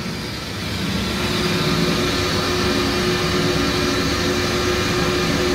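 Hollymatic 180-A mixer grinder running, its 10 hp electric motor and drive giving a steady mechanical hum with a held mid-pitched tone, growing a little louder about a second in.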